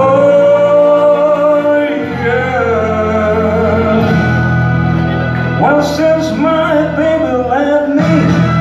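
Male singer singing into a microphone over amplified backing music, holding long notes.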